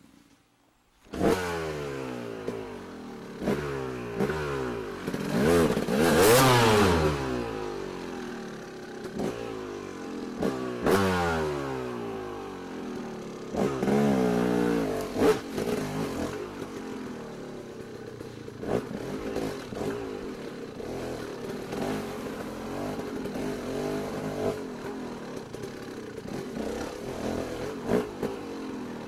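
Small engines revving and passing, their pitch rising and falling over and over, with scattered clatter. It starts suddenly about a second in.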